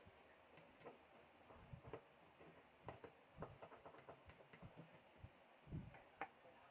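Faint, scattered clicks and light taps from hands handling desktop computer parts, with a couple of soft thumps near the end, over near silence.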